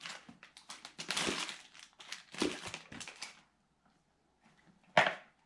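Plastic and paper packaging rustling and crinkling in irregular bursts as hands handle a laptop's charger and accessories, stopping after about three seconds, with one short sharp rustle near the end.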